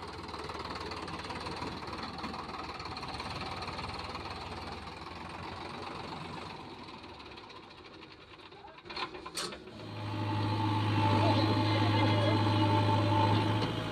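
Diesel engine of a tractor or backhoe loader running steadily, with two sharp clicks about nine seconds in. Just after the clicks the engine note becomes much louder and closer: a steady low hum with a higher tone above it.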